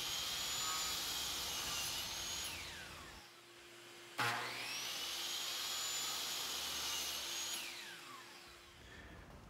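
DeWalt miter saw cutting MDF: the motor whine winds down about two and a half seconds in, then the saw starts again with a rising whine about four seconds in for a second cut and winds down near the end.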